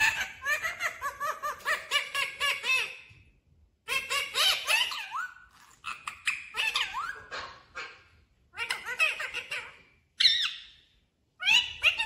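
Green ring-necked parakeet chattering and squawking in quick rising-and-falling notes, in about six short phrases with brief pauses between them.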